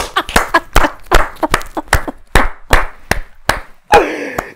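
A man clapping his hands repeatedly while laughing, with sharp, irregular claps about three a second and a breathy laugh near the end.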